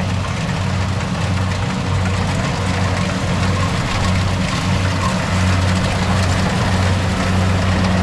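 Engine of farm machinery running steadily: a deep, even hum under a wide hiss of machine noise.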